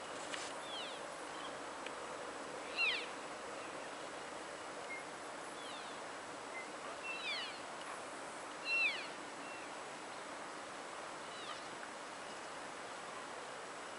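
Rocky Mountain elk cows calling to each other: short, high, squeaky mews and chirps that fall in pitch, one every second or two, the loudest about two-thirds of the way in, over a steady hiss.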